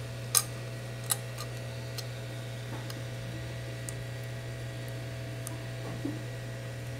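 Small clicks and taps of plastic phone parts being handled as a disassembled Samsung Galaxy J5 is worked on. The sharpest comes about a third of a second in and another just after a second, with fainter ones later, over a steady low hum.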